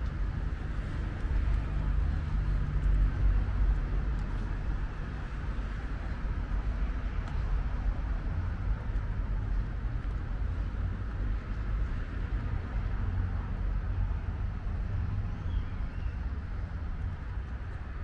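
Steady road traffic noise: a low rumble under a steady hiss, swelling a little about two to four seconds in.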